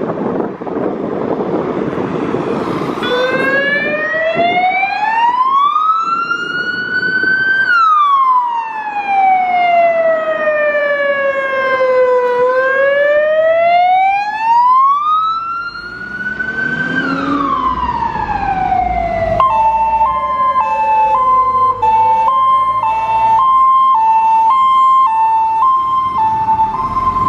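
Fire service emergency vehicles' sirens: a slow wail rises and falls twice, then about two-thirds through a two-tone siren switching between two close notes takes over. A diesel truck engine rumbles under it as it passes.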